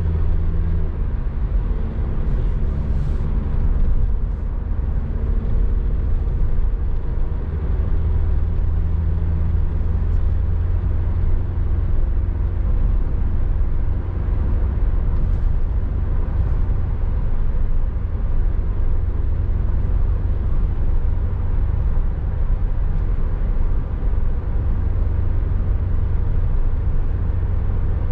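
Car driving steadily on a highway, with a continuous low engine and road drone heard from inside the cabin. This is plausibly a 2022 Toyota Rush.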